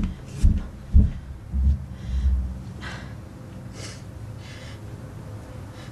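A few dull low thumps, then a young woman's short, breathy sniffles and gasps, about four of them a second or so apart, as she starts to cry.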